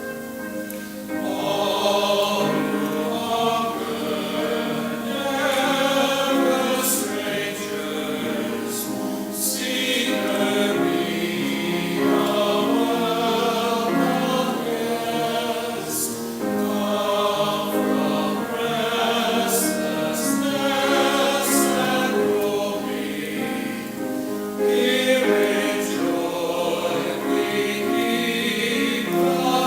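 A choir singing a hymn, the voices coming in about a second in over sustained instrumental accompaniment.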